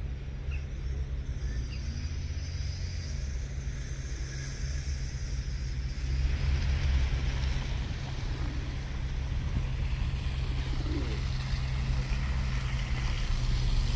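Steady low outdoor rumble with a soft hiss that grows louder about six seconds in.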